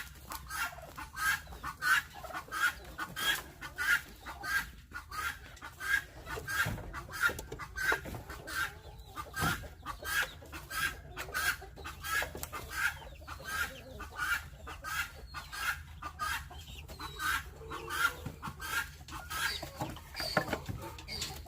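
Chickens clucking in a steady run of short calls, about two to three a second.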